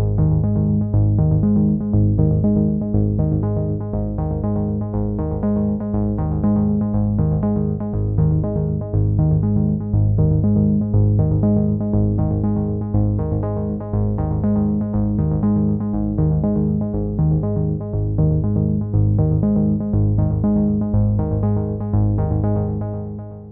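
Electronic background music on synthesizer with a steady repeating beat, fading out near the end.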